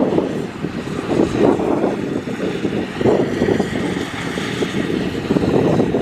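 Kubota rice combine harvester running as it cuts through a standing rice crop: a loud, continuous engine-and-machinery drone that swells and dips slightly.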